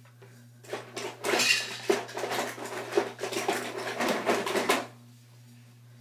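Small plastic toy pieces clattering and rattling as they are handled and set down on a table, a dense run of clicks and knocks starting about a second in and stopping shortly before the end.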